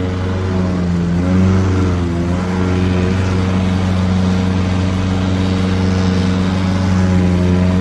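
Lawnmower engine running steadily, with a brief dip and recovery in pitch about one to two seconds in.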